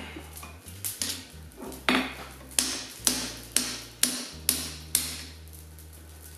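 Hand hammer striking a red-hot 16 mm round bar on the anvil, bending it into shape for a chain link; sharp metallic blows that settle into about two a second, each with a short ring.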